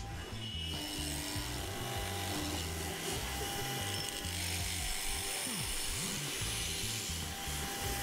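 Mortising machine's chisel cutting into the end of a cherry log, a steady wood-cutting noise, over background music with a stepping bass line.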